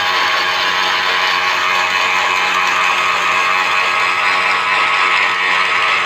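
Kubota DC-95GM rice combine harvester running steadily: an even mechanical clatter and whir from its machinery over the engine, with no change in speed.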